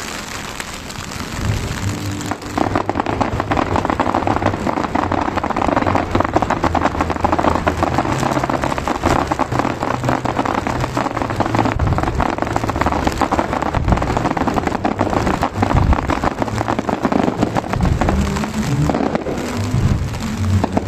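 Fireworks crackling: a dense, rain-like hiss of many small pops, thickening about two seconds in, with music playing over loudspeakers underneath.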